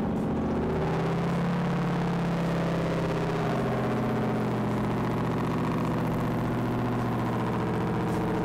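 Supercharged Hellcat V8 engine in a custom Humvee idling steadily.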